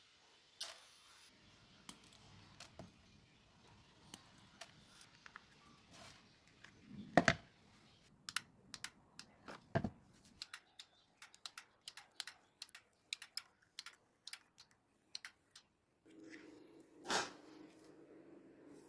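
Many small hard clicks and taps, several a second at their busiest, with a couple of louder knocks, as small parts are handled on a work surface. A low steady hum comes in near the end.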